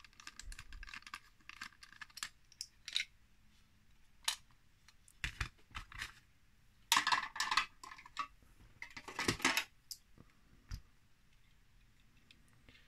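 Small hard plastic clicks, taps and clatters from handling a diecast model car's plastic display case: a small screwdriver working the case's base, then two louder clattering bursts, about seven and nine seconds in, as the parts are moved and the car is taken out.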